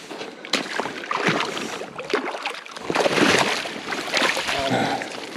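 Water splashing and sloshing close up in irregular bursts, the sound of a freshly landed trout being handled in the shallows of the river.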